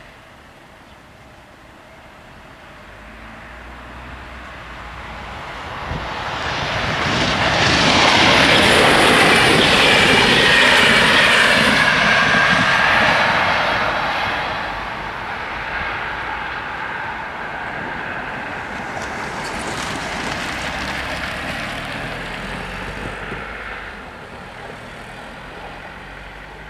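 An intercity passenger train passing over a level crossing: it grows louder over several seconds, is loudest for about six seconds as the front of the train goes by, with a high whine over the noise, then runs on more quietly as the coaches pass and fades near the end.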